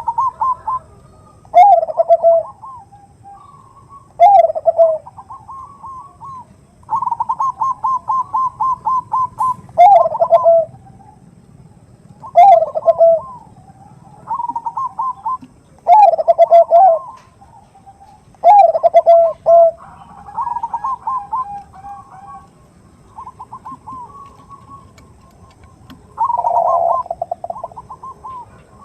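Zebra dove (Bangkok-bred perkutut) cooing: repeated phrases every two to three seconds. Rapid runs of short, even coo notes alternate with louder, lower notes that fall in pitch.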